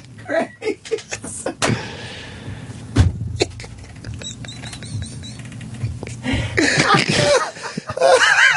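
A man's helpless laughter in short gasping bursts, a lull, then high-pitched squealing laughs that rise and fall near the end. A sharp knock about three seconds in.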